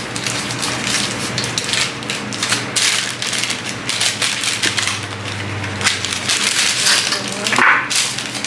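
Packaging crinkling and rustling in irregular crackles as parts are handled and unwrapped from a box.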